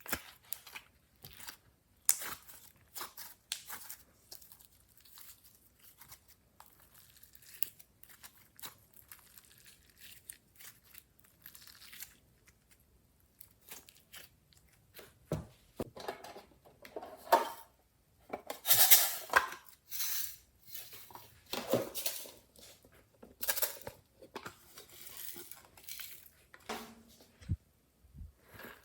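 Glossy slime being worked by hand, squished and stretched, with irregular sticky crackles and pops. It gets louder in a dense cluster a little past the middle.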